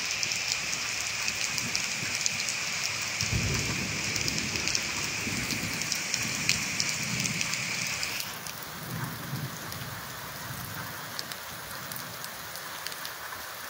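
Heavy rain falling steadily, with sharp drop ticks close by. About three seconds in, a low roll of thunder starts and rumbles on for several seconds, swelling and fading. The rain hiss eases a little about eight seconds in.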